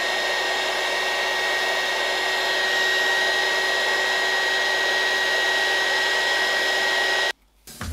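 Small craft heat gun blowing hot air onto a foam sheet to soften it: a steady fan rush with a thin high whine. It cuts off suddenly near the end.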